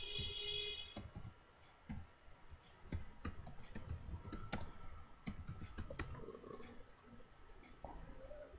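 Computer keyboard keys clicking as a word is typed slowly, one irregularly spaced keystroke at a time.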